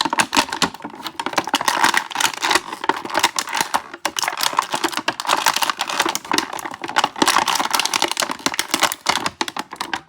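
Toy packaging being handled and pulled apart to free an action figure: a dense, irregular run of crinkles, clicks and snaps.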